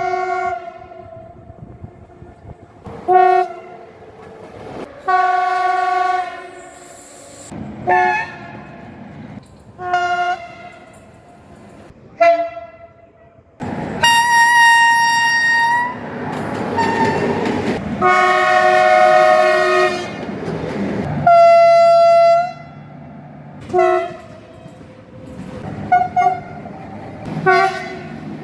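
Train horns sounding about a dozen times, mostly short blasts with a few longer ones of one to two seconds in the middle. The pitch and chord change from blast to blast, as different locomotives' horns follow one another, and the noise of a passing train runs under the longer blasts.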